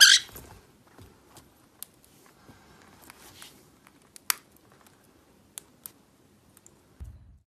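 A white-bellied caique rolling off its back and standing on a cloth bedspread: a brief high squeak right at the start, then soft rustling and scattered sharp clicks as it moves and nibbles at its foot.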